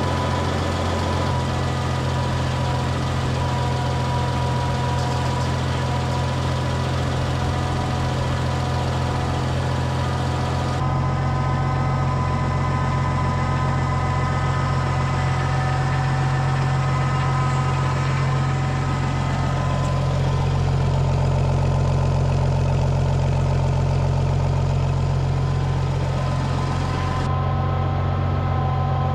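Oliver 1650 tractor engine idling steadily, its tone shifting abruptly once about a third of the way in and again near the end.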